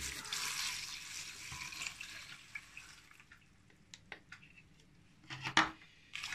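Water poured from a plastic measuring jug into a stainless steel pot onto dry onion skins, salt and sugar. It is a steady pour that thins out after about three seconds into a few drips and small clicks, with a short knock near the end.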